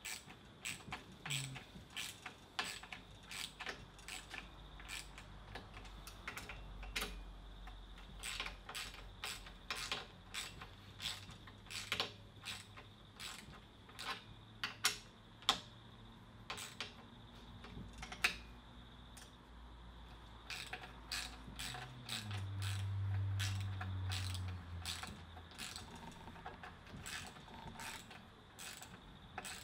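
Ratchet and 10 mm socket clicking in short, irregular runs as nylock nuts are tightened onto bolts, with a low hum for a few seconds about two-thirds of the way through.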